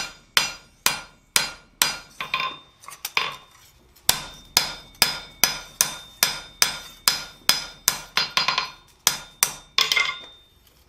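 Sharp cross peen hammer striking a hot steel blank on an anvil, about two blows a second with a short ring after each, pressing lines of needles into a Christmas-tree shape. The rhythm twice breaks into lighter taps and pauses briefly before resuming, and near the end the hammer is set down on the anvil.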